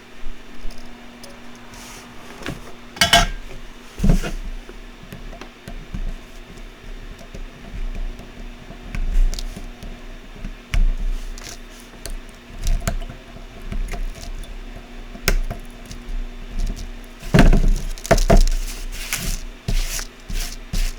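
Irregular small clicks, taps and knocks of hand tools and a circuit board being handled on a workbench during kit soldering, with louder clusters of clatter near the start and near the end, over a steady low hum.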